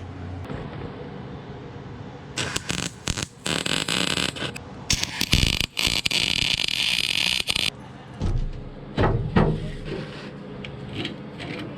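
MIG welder arcing on steel: a few short stop-start bursts, then one steady bead of about three seconds that cuts off, followed by a few lighter knocks.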